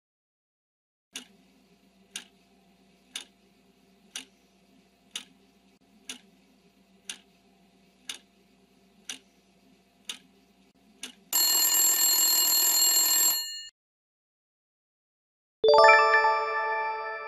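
Quiz countdown-timer sound effect: a clock ticking once a second for about ten seconds, then an alarm bell ringing for about two seconds as time runs out. After a short pause, a bright chime sounds and slowly fades, marking the answer reveal.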